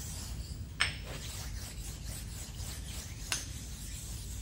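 Precision flat stone rubbed over a lathe's cross slide to knock down burrs: a soft, scratchy rubbing, with two sharp clicks, about a second in and again about three seconds in.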